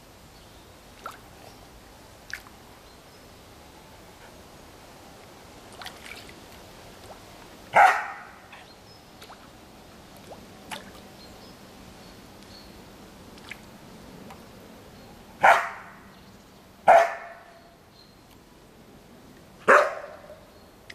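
A dog barking: four single barks spread out, one about eight seconds in and three in the last third, two of them about a second and a half apart. A few faint clicks between them.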